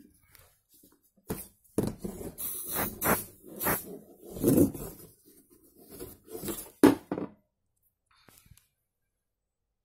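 3018 desktop CNC router's spindle bit cutting into a wooden board: irregular scraping bursts for about six seconds, with a sharp crack near the end, then it goes quiet.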